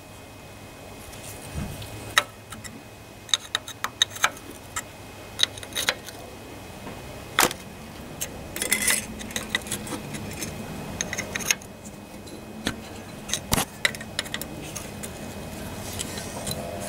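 Steel ring spanner clicking and clinking on the rusty nuts and cast-iron side cover of a CS Lister stationary engine as the nuts are loosened and run off. The sound is a string of irregular sharp metal taps.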